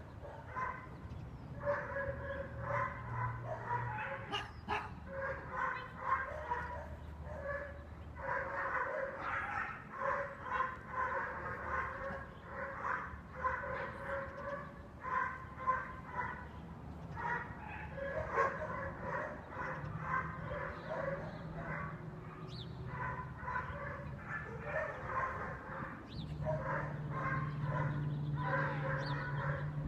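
A dog barking in quick, continuous runs of short yaps, several a second, broken by brief pauses, over a steady low hum.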